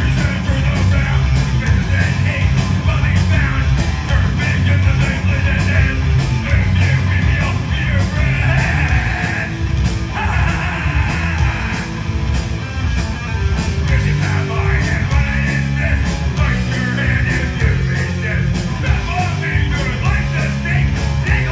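Live punk rock band playing: distorted electric guitars, bass and drums, with a vocalist singing into the microphone.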